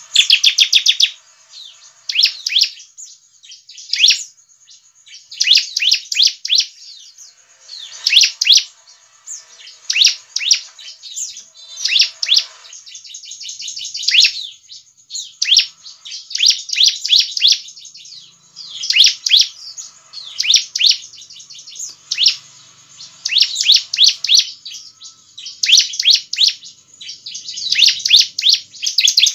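Bar-winged prinia (ciblek) singing vigorously: short, rapid, high-pitched trilled phrases repeated about every one to two seconds with brief pauses between them.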